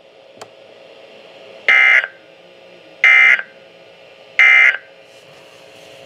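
SAME end-of-message data bursts from a NOAA Weather Radio broadcast, played through a Midland weather radio's speaker: three short, harsh digital squawks about a second and a half apart, marking the end of the tornado warning.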